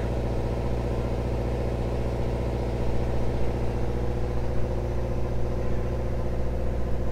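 Steady low mechanical drone, like a motor running at an even speed, with a deep hum and a band of higher overtones that never changes.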